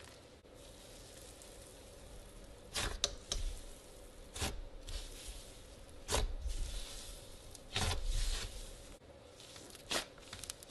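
Green slime being stretched, folded and pressed by hand, giving squelches and sharp pops at irregular intervals, about one every second or two.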